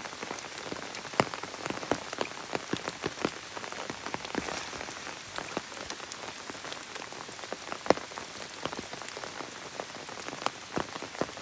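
Rain falling: a steady hiss with scattered, irregular drops ticking close by.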